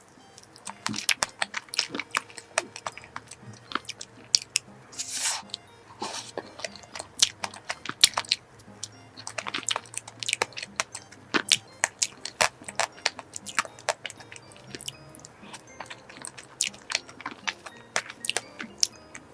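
Close-miked eating of soft cream cake: a dense, irregular run of wet mouth clicks and chewing, with two longer soft smacks about five and six seconds in.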